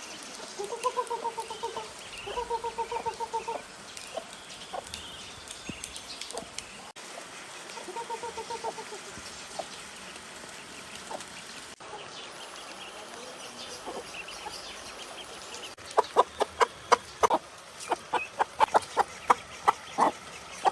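Hen clucking in quick runs of repeated notes, three times. Near the end come many sharp, sudden taps and clicks.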